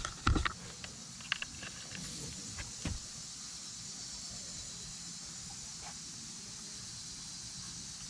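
A few light clicks and knocks over the first three seconds as a rubber fuel hose is lifted against a plastic fuel caddy, then a steady faint hiss of outdoor background.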